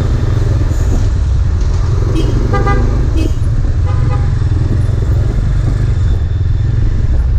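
Steady low rumble of a motorcycle and surrounding heavy traffic in slow stop-and-go riding, with short vehicle horn toots about two and a half seconds in and again near four seconds.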